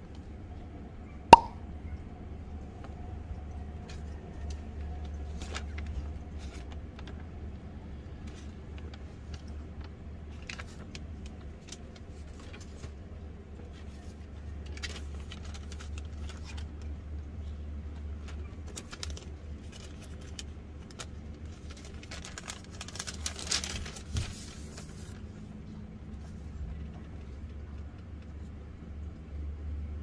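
Paper prints in clear plastic sleeves being handled: one sharp click about a second in, scattered light taps and rustles, and a burst of plastic crinkling around two-thirds of the way through, over a low steady hum.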